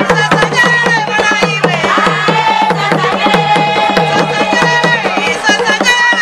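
Drumming for the Chewa Gule Wamkulu masked dance: a fast, steady beat of low tuned drums, about four or five strokes a second, with high voices singing over it.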